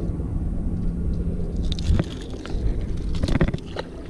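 Handling noises as a caught fish is unhooked with pliers: a few sharp clicks and knocks about two seconds in, and a cluster of them a little past three seconds, over a steady low hum.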